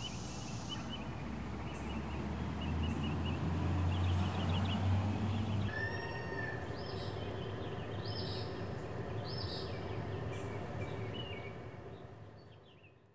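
Outdoor ambience: small birds chirping in short repeated calls over a low steady rumble. About six seconds in the bird calls change to different, higher chirps, and the sound fades out near the end.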